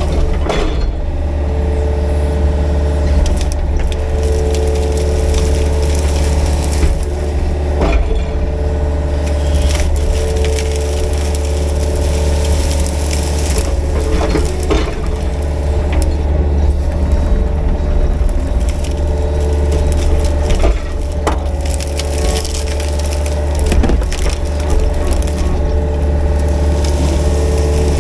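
Excavator engine running steadily under load with a hydraulic whine, while brush and small trees crack and splinter as the rake tears through them; several sharp snaps stand out above the engine.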